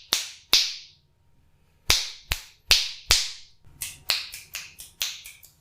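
Finger snaps recorded by a Blue Yeti USB microphone in bidirectional mode. About six loud, evenly spaced snaps come first, then from about halfway a faster run of fainter snaps. The drop in loudness fits snapping beside the microphone, where the bidirectional pattern rejects sound from the sides.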